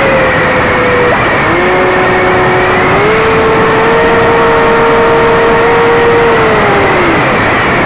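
Radio-controlled model aircraft's motor heard from its own onboard camera, under heavy wind rush over the microphone. The motor's whine cuts off about a second in, comes back lower, steps up and holds, then slides down near the end as the throttle changes.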